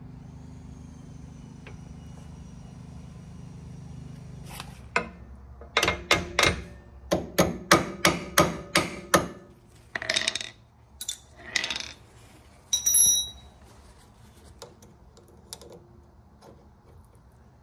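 A hammer tapping on metal: a quick run of about a dozen sharp strikes from about five to nine seconds in, then a few scattered knocks and a brief metallic ring. A steady low hum stops about four seconds in.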